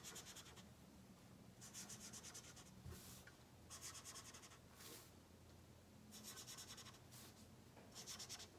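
Faint scratching of a felt-tip marker on paper, in short bursts of quick strokes every second or two as small ovals are coloured in.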